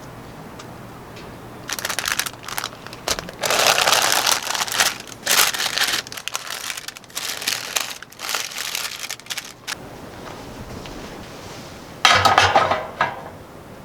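Crinkling and rustling in irregular bursts for several seconds, then one more short burst near the end.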